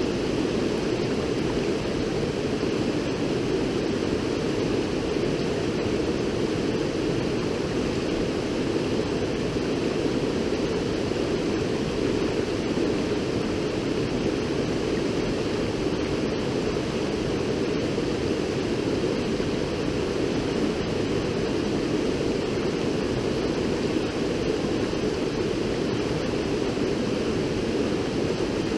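River water rushing, a steady unbroken rush.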